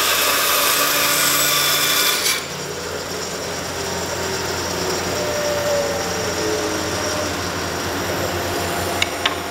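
Band saw cutting a kerf into a hickory axe handle: a loud, high cutting noise that stops abruptly about two seconds in. The saw then runs on without load with a steady hum, and two sharp clicks come near the end.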